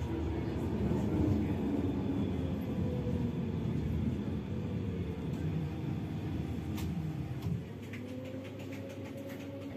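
Tram running, heard from inside the car: a steady low rumble of wheels on rails with a faint motor tone. About three quarters of the way through there is a click, and the rumble eases off as the tram slows.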